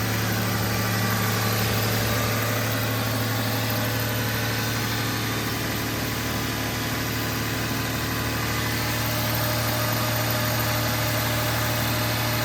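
1999 Toyota 4Runner's 3.4-litre V6 idling steadily after a fresh tune-up with new spark plugs and plug wires, running smoothly with an even low hum.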